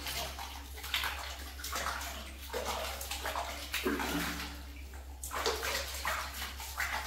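Water splashing and sloshing in a bathtub in irregular bursts as a baby monkey is bathed.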